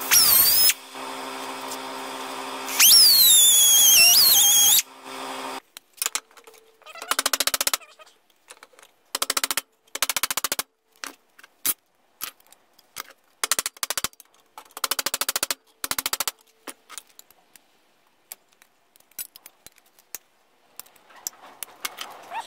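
Die grinder with a cutoff wheel cutting into a metal plate held in a bench vise: a loud high whine that dips and wavers in pitch as the wheel bites, then shuts off and spins down about five seconds in. After that come several short bursts of rapid clicking, each under a second long, with pauses between.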